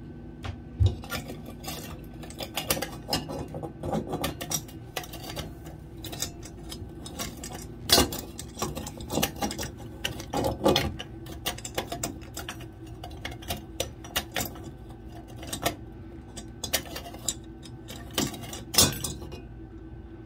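Irregular clicks and knocks of metal parts being handled at the tub spout's threaded steel supply pipe during fitting of the new spout. The sharpest knocks come about a second in, near the middle and near the end.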